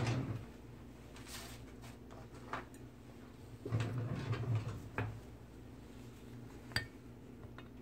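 A glass jar set down on a paper-covered bench with a soft knock, followed by faint intermittent handling noises and one sharp click near the end.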